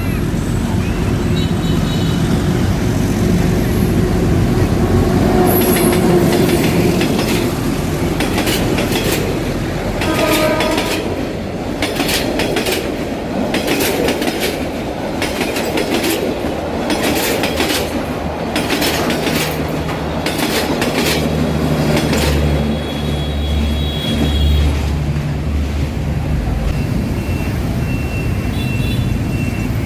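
Passenger train rolling past at close range, with a steady rumble and a rapid clatter of wheels over the rail joints through the middle. A low steady hum joins near the end.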